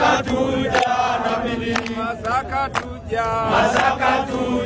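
A group of people chanting and singing together in unison, with a few sharp hand claps.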